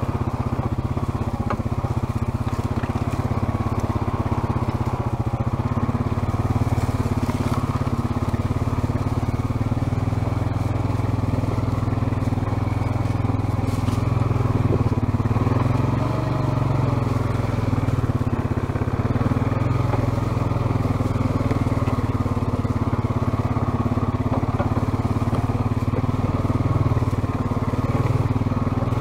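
ATV engine running steadily at low, even speed, heard close up from on board, with a constant deep hum that barely changes.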